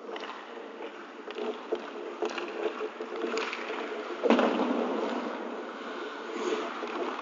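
Ice hockey play in an echoing rink: skates scraping the ice and small stick-and-puck clicks over a steady hum, with one loud hard knock about four seconds in that rings on briefly.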